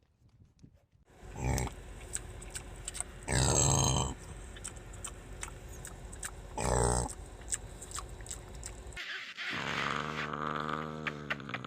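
A dog growling and grunting: a few short, loud grunts several seconds apart, then a longer, steady growl in the last few seconds.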